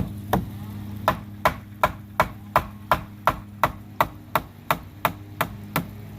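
Hammer tapping a 2x4 brace up into place, about three even blows a second with a short pause near the start: the brace is being driven tight under the porch rail to lift the load off the rotted post.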